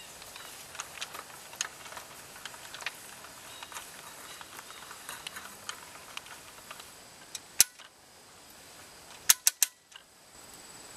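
Hand-cranked winch and hinge hardware on a vertical antenna's tilt base being worked as the aluminium mast is lowered: light irregular metallic clicking, then one sharp click and, near the end, three quick sharp clicks.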